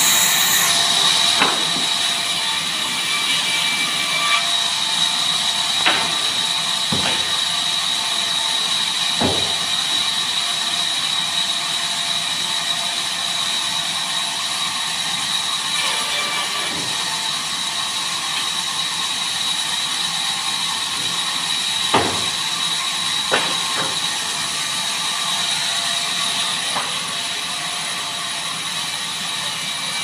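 Large vertical band saw running and ripping wooden planks as they are fed through: a steady high whine over a hissing mechanical noise, with a few sharp knocks along the way.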